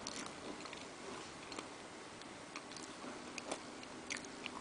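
A person chewing food close to the microphone, mouth open: irregular small sharp clicks and smacks of the lips, teeth and food, the strongest near the end, over a steady hiss.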